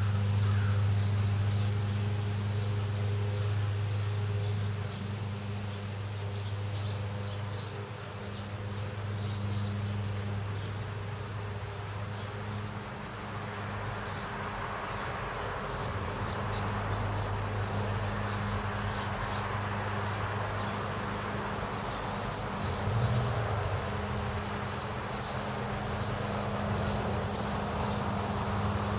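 Neighbourhood outdoor ambience: a steady low hum, with the rushing noise of car traffic swelling through the second half and faint high chirps scattered throughout.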